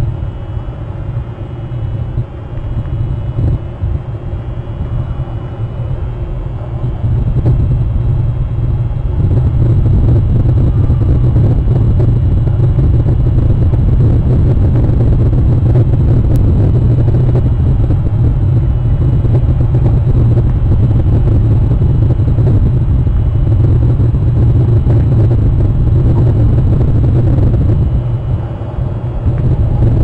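Wind blowing across an outdoor camera microphone: a steady, loud low rumble that grows louder about eight seconds in and eases briefly near the end.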